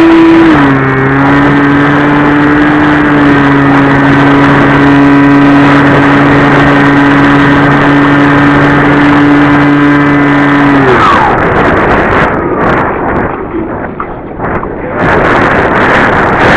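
Multiplex Easy Star II RC glider's electric pusher motor and propeller running at steady throttle with a steady whine, then throttled off about eleven seconds in, the pitch falling away. Wind rushing past the plane while it glides under power off follows.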